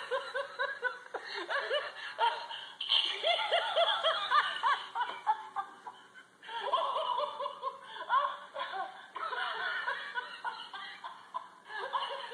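Battery-operated laughing plush toy playing its recorded laughter while it wriggles across the floor: rapid runs of high giggling in several fits, broken by brief pauses.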